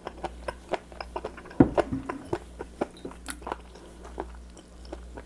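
Close-miked chewing of raw seafood: wet clicks and crunches, several a second, with one louder thump about one and a half seconds in.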